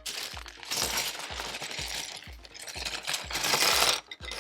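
Loose plastic LEGO pieces clattering and rattling as they are poured out and handled. The clatter is loudest about three and a half seconds in and stops abruptly just before the end.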